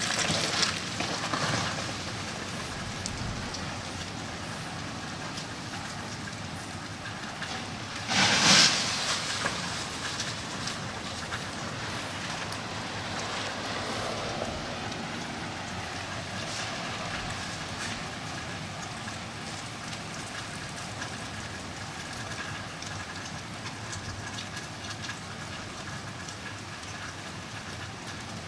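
Freezing rain falling steadily in an ice storm, a continuous even hiss of noise. A brief louder rush of noise comes about eight seconds in.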